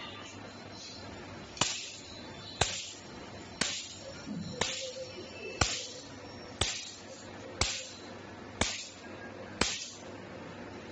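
PicoSure picosecond laser firing single pulses at 1 Hz onto a dark test surface, a sharp snap with each pulse: nine snaps, evenly about a second apart.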